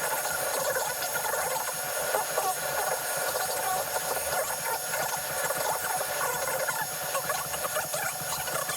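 XVICO X3S 3D printer running, its stepper-motor whirs sped up into a dense, high chattering hiss full of quick chirps.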